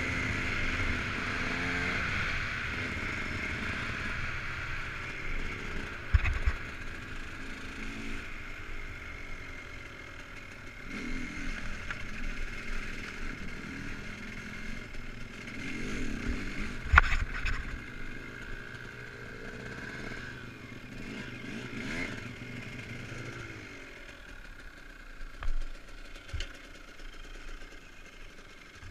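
Dirt bike engine running as it is ridden over a rough track, with sharp clattering knocks from bumps, the loudest about six and seventeen seconds in. The engine sound drops lower and quieter for the last few seconds.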